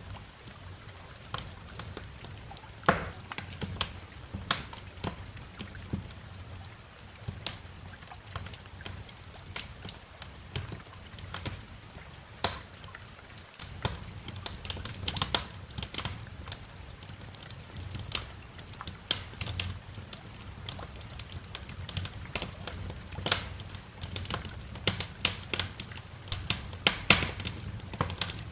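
Wood fire crackling in a fireplace: irregular sharp pops and snaps over a steady low rumble, with a momentary dropout about halfway through.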